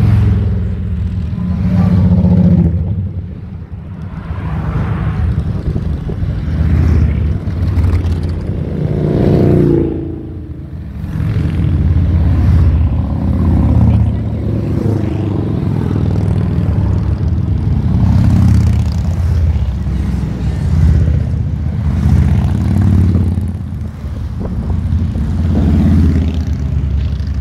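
A long line of cruiser and touring motorcycles riding past one after another, their engines swelling and fading every few seconds as each bike goes by.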